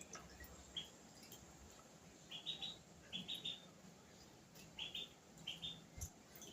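Ducklings peeping: short, high cheeps, faint, coming in quick clusters of two or three every second or so.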